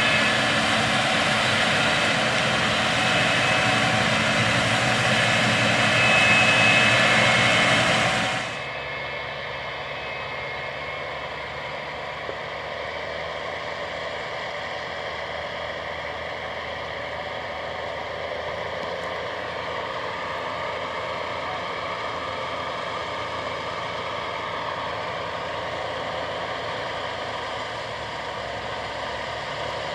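Gleaner S97 combine with a 9.8-litre AGCO Power diesel, running while harvesting soybeans: a steady drone of engine and threshing machinery. It is loud for the first eight seconds or so, then drops suddenly to a quieter, more distant steady hum.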